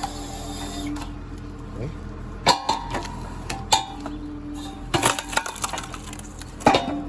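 Background music of sparse struck or plucked notes, each a sharp attack followed by a short held tone.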